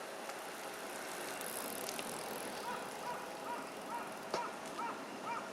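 Bicycle being ridden, with a steady rushing noise. From about halfway in, a short squeak repeats about twice a second, with a couple of sharp clicks.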